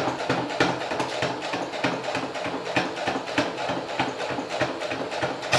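Electric sewing machine stitching steadily: a motor hum under an even run of needle ticks, several a second.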